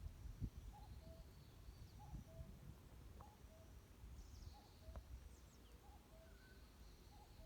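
Faint forest birdsong: one bird repeats a two-note call, the second note lower, about every second and a quarter, while other small birds give thin high chirps. A low rumble with a brief thump about half a second in.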